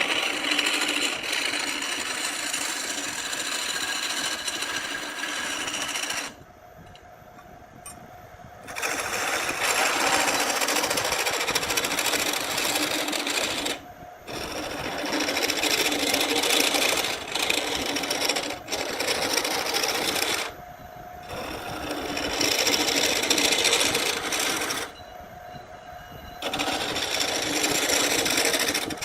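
Power tool working wood, running in long spells that drop off briefly four times.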